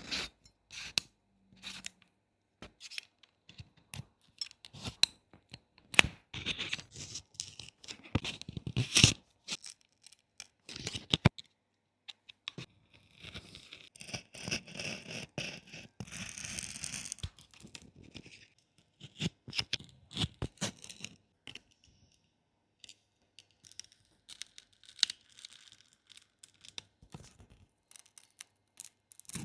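Hands and small tools working on a smartphone's back cover: a string of sharp clicks and taps, with two longer stretches of tearing and scraping noise, like adhesive or film being peeled.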